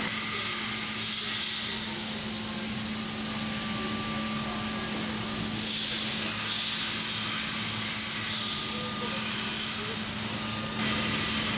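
MultiCam 5000 Series CNC router running: a steady hum with a high hissing noise that swells and fades several times.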